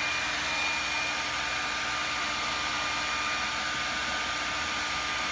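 Handheld blow dryer running steadily, a rushing air hiss with a constant whine, blowing across wet epoxy resin to push the colours together.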